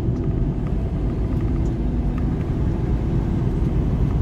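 Semi-truck cab interior at highway speed: steady low rumble of the engine and road noise, with a faint steady hum through it.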